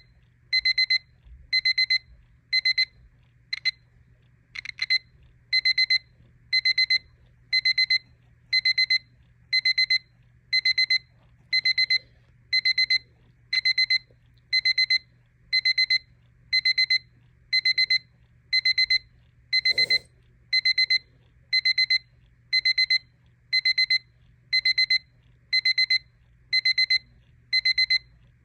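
Battery travel alarm clock's alarm going off: short bursts of rapid, high-pitched beeping, repeating about once a second. There is a single click about twenty seconds in.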